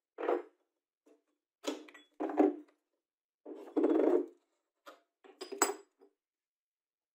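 About seven short metal clinks and knocks as a bench grinder's grinding wheel, flange washer and nut are worked off the spindle and a spanner and the parts are set down on a wooden bench. One longer rattling clatter comes about four seconds in.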